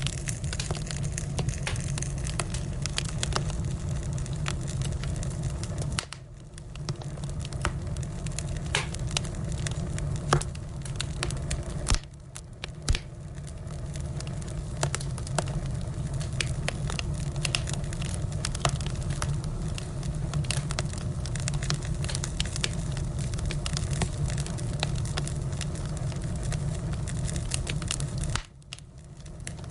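Firewood burning: frequent sharp crackles and pops from the wood over a steady low rumble.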